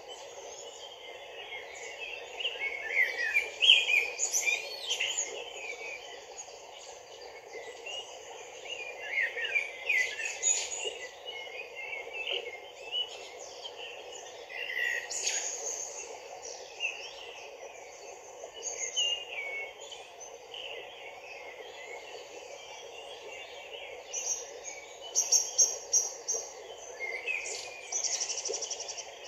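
Small birds chirping and calling over and over above the steady rush of a shallow stream running over rocks, with a fast, high trill twice near the end.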